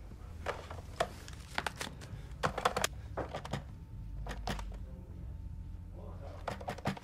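Irregular light clicks and taps of objects being handled on a desk, over a faint low hum.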